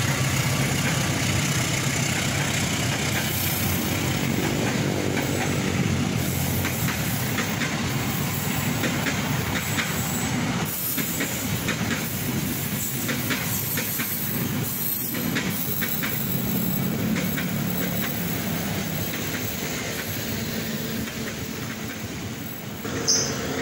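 Passenger train coaches rolling past on the rails: a continuous rolling noise with occasional wheel clacks, easing off a little near the end.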